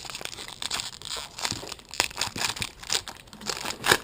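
Trading-card pack wrapper crinkling and tearing, a run of irregular crackles with one sharp, louder crackle near the end.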